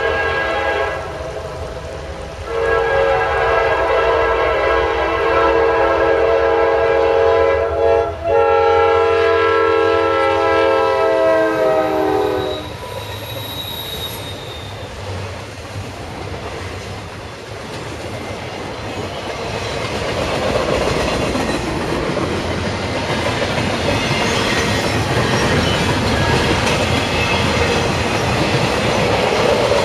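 Diesel freight locomotive's multi-tone air horn: a blast that ends about a second in, then a long blast of about ten seconds whose pitch drops slightly about eight seconds in as the locomotive passes. After the horn cuts off, double-stack intermodal cars roll by with a steady wheel rumble and clatter that grows louder toward the end.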